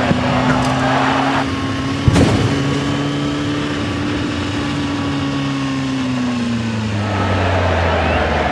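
A motor running with a steady pitched hum that sags lower in pitch near the end, with a sharp knock about two seconds in.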